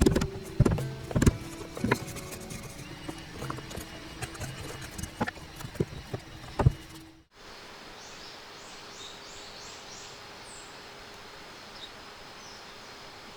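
Background music with a clip-clop knocking rhythm, which cuts off about seven seconds in. Then quiet outdoor ambience with a quick run of about six short, high, downward bird chirps, followed by a couple of single chirps.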